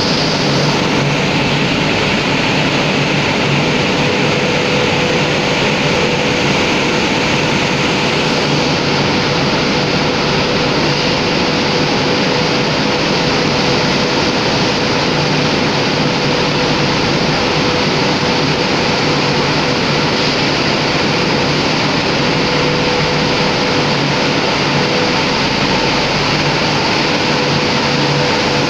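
Flour mill plansifters and the surrounding milling machinery running: a loud, steady mechanical noise with a constant hum.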